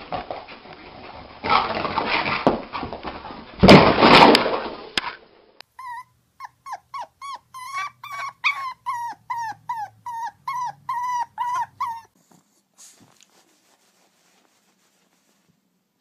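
A stretch of loud, hissy noise, loudest about four seconds in, gives way to a dog yipping: a rapid series of some twenty short, high cries that fall in pitch, about three a second, stopping about twelve seconds in.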